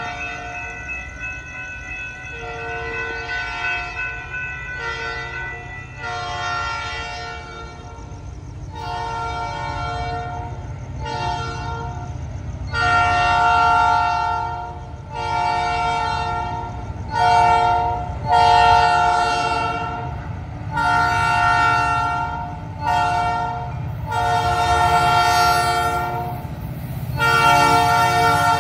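Air horn of a Florida East Coast SD40-2 diesel locomotive blowing a chord of several notes in repeated long and short blasts, the pattern sounded for grade crossings, growing louder as the train approaches. A low rumble of the train runs underneath.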